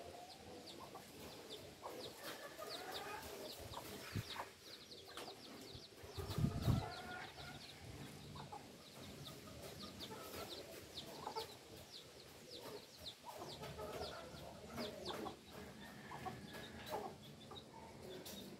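Chickens clucking among many small birds chirping quickly and high, with a brief low rumble about six seconds in.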